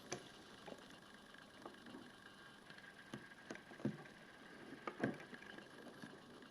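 Faint, scattered small clicks and taps, about eight of them, from hands handling the opened radiation detector and its small parts, over a low room hiss.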